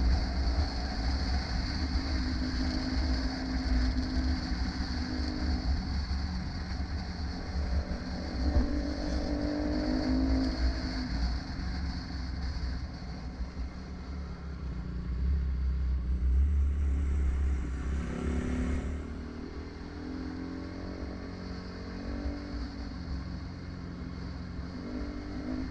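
Dirt bike engine running at trail speed, revs rising and falling as the rider rolls on and off the throttle, with wind buffeting the helmet-mounted microphone.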